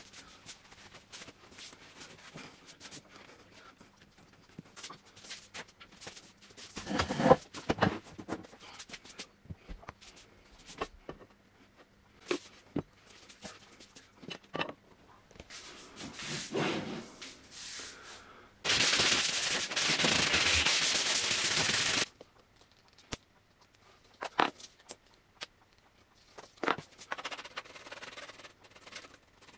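Workbench handling noises from gluing an aluminium plate onto a plywood panel: hands rubbing and pressing on the metal sheet, with knocks and thumps as heavy weights are set down. About two-thirds of the way through, a steady hiss runs for about three seconds and cuts off suddenly. Near the end there is light scraping as glue is spread with a spatula.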